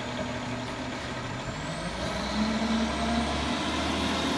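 Garbage truck's engine running as the truck pulls away, growing a little louder, with a faint high whine that slides up in pitch partway through.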